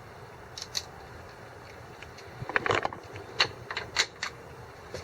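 Short metallic clicks and clinks of a hand tool working a bolt on the truck's front end: one click a little under a second in, a quick cluster about halfway through, then a few single clicks.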